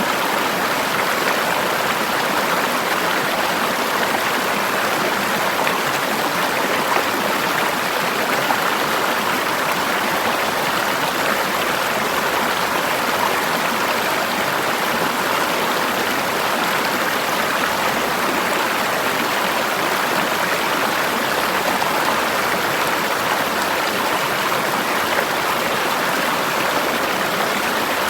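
Forest river flowing over rocks: a steady, even rush of water.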